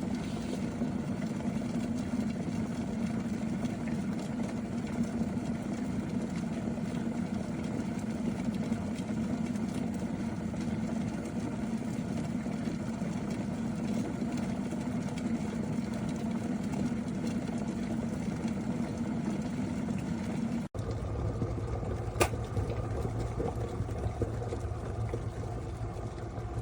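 Peach Street 1.7 L glass electric kettle at a steady rolling boil, a continuous rumbling of bubbling water, still boiling past the point where its auto shut-off normally trips. Near the end the sound briefly drops out and comes back with a different tone, and a single sharp click follows.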